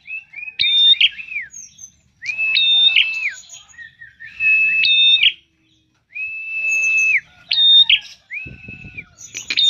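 Caged prinia (prenjak) singing a run of shrill, whistled phrases. Each phrase is a short high note followed by a held lower note, and they repeat about once a second with short pauses between.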